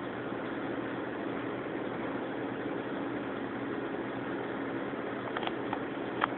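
Steady low hum with hiss, and three light clicks near the end, the last the loudest.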